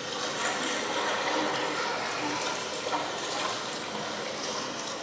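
Steady rush of running water in an aquarium pool, an even hiss with no single splashes standing out.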